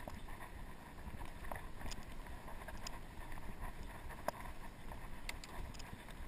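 Norco Sasquatch fat bike rolling over a leaf-covered dirt trail: a steady low rumble of tyres and wind on the microphone. About five sharp clicks and knocks from the bike are scattered through it, the loudest about four seconds in.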